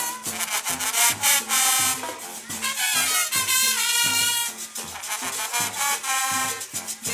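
Marching brass band playing a Latin-style tune: trumpets, trombones and sousaphone over a steady pulse of drums and bass.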